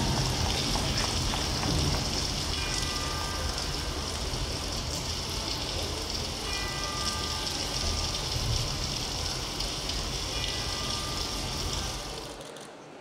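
Performance soundtrack of steady rain-like noise, with short high chime tones every three to four seconds, fading out near the end.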